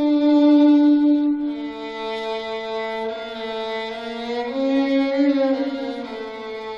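Slow background music of long held notes on bowed strings, the melody changing pitch about every second and a half.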